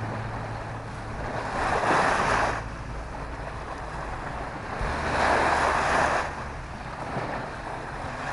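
Small waves washing up on a sandy lakeshore, the surf noise swelling and fading twice, about three and a half seconds apart.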